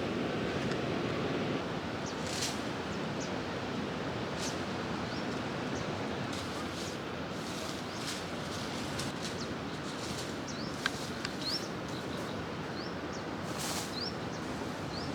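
Outdoor ambience: a steady noisy background with short, high, rising bird chirps scattered through it, more of them in the second half.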